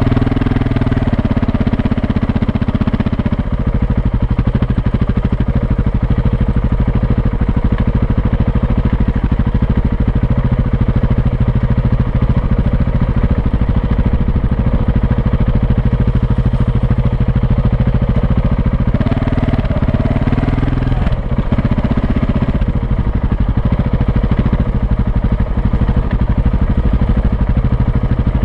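Off-road motorcycle engine running steadily at low speed on a dirt track, with a brief change in the engine note about two-thirds of the way through.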